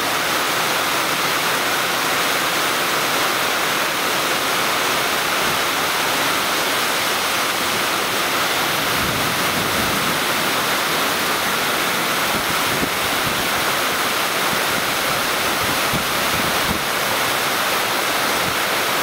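Heavy rain pouring down in a steady, loud rush.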